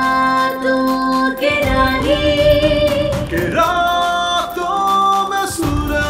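Background song: a singing voice holding long notes, gliding from one to the next, over music with a steady beat.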